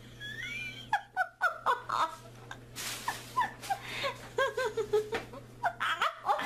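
A person giggling and snickering in short, pitched bursts of laughter, over a steady low hum.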